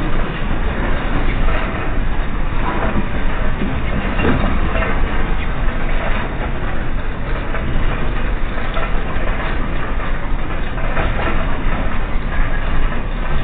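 Loud, continuous low rumbling of the M7.8 earthquake's ground shaking, with irregular rattling and knocking through it, picked up by an outdoor CCTV camera's microphone.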